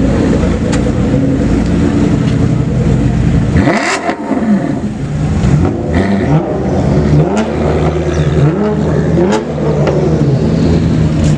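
A performance car's engine running steadily, then, about four seconds in, blipped through a series of quick revs that rise and fall in pitch, with a few sharp exhaust pops among them.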